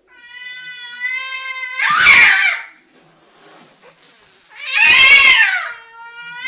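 Domestic cat yowling a drawn-out warning, a long, steady, rising wail broken by two loud harsh screeches, about two seconds in and about five seconds in, then wailing again near the end: a defensive, territorial threat.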